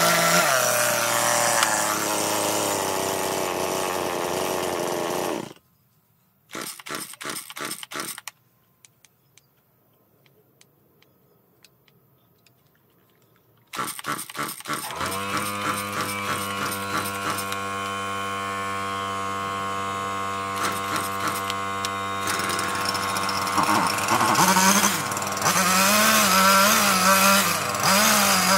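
Chainsaw cutting into a wooden log, then cutting off abruptly about a fifth of the way in. A burst of rapid pulsing and a quiet gap with faint ticks follow, then the saw catches with a rattle and idles steadily. About three-quarters of the way through it revs up and cuts again, its pitch wavering.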